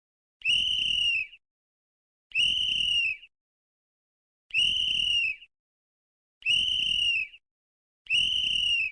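A whistle blown in five short blasts of about a second each, roughly two seconds apart, with dead silence between them. Each blast is a high, steady tone that dips slightly as it ends.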